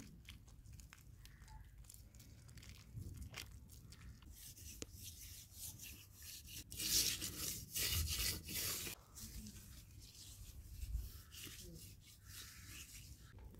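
Hands scraping and rubbing gritty soil, packing it around a metal pot set into a hole in the ground, with small clicks and rustles; the scraping is loudest in the middle.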